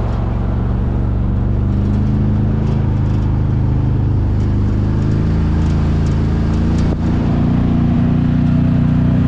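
Can-Am Maverick side-by-side's engine running steadily under way, holding a fairly even pitch, with a brief dip about seven seconds in.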